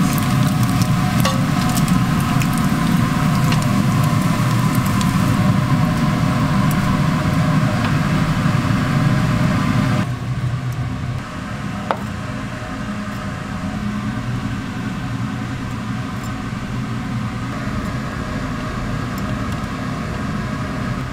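Bacon strips sizzling and crackling on a flat-top griddle over a steady low mechanical hum. About halfway through the sizzle cuts off, leaving the hum with a single light click soon after.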